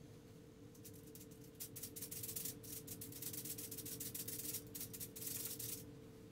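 Paintbrush bristles scrubbing and rubbing on the palette in quick repeated strokes, a dry scratchy swishing that starts about a second in and stops near the end, over a faint steady hum.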